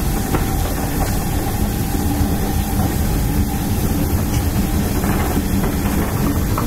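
Steam-hauled passenger coaches rolling past along a platform on departure: a steady rumble of wheels on the rails with a hissing haze over it.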